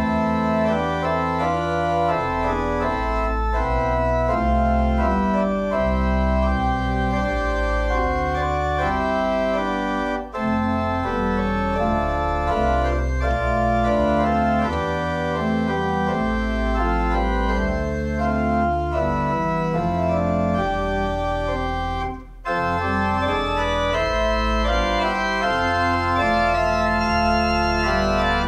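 Pipe organ playing held chords over a deep pedal bass, the chords changing in steps. The music breaks off briefly twice between phrases.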